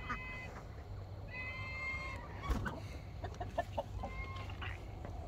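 Chickens clucking and calling: a few drawn-out calls and a quick run of short clucks.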